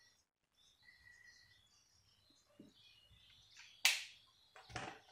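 Marker pen writing on a whiteboard: faint high squeaks and scratches, then two short sharp noises near the end, the first about four seconds in being the loudest.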